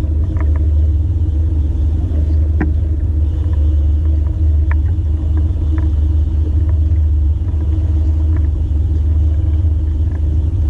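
Fishing boat's motor running steadily at slow trolling speed: a continuous low rumble with a few faint ticks scattered through it.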